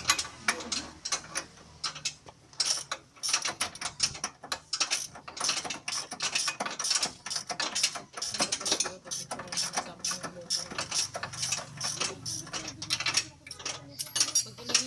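Hand ratchet wrench clicking rapidly and unevenly, several clicks a second, as it is worked on a fastener.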